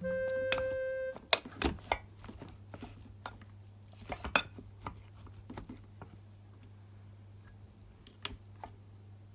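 A held musical note ends about a second in. Scattered light clicks and knocks of kitchen utensils and dishes being handled follow, over a low steady hum.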